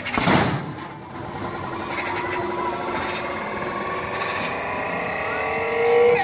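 A single punch smacks into the leather bag of a Boxer arcade punching machine just after the start, followed by several seconds of the machine's electronic sound effects as the score display counts up.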